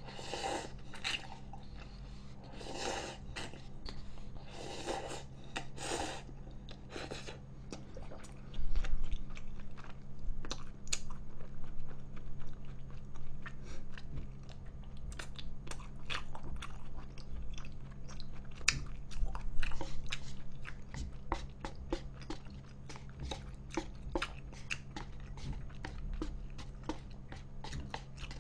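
A person eating instant jjajang noodles close to a microphone. A few sips from the cup come in the first several seconds, then from about eight seconds in steady wet chewing with many short lip-smacking clicks.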